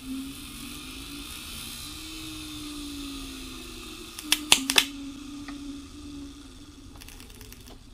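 Exposed brushed DC starter-motor armature spinning on its brushes, driven from a 12-volt jump pack with a hand-held permanent magnet as its only field: a steady whirring hum with a faint high whine. There are a few sharp clicks about halfway through, more near the end, and the hum fades in the last seconds.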